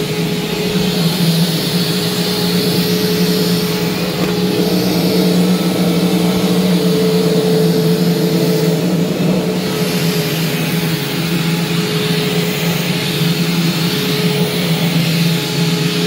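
Hoover Preferred (Spirit) U5018 upright vacuum cleaner running on carpet: a steady motor hum under the rush of air, swelling and easing slightly as the nozzle is pushed back and forth.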